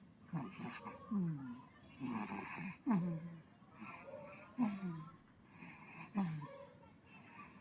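A baby snoring, a short rasping snore with each breath, the louder ones coming about every second and a half.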